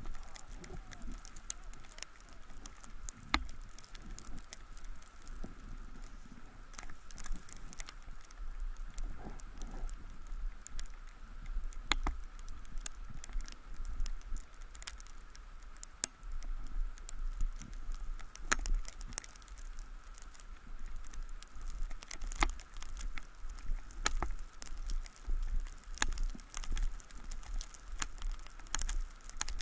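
Handling noise on a body-worn action camera as the rider slows to a crawl on snow. It is a low rumble with many scattered sharp ticks and knocks and a faint steady high hum.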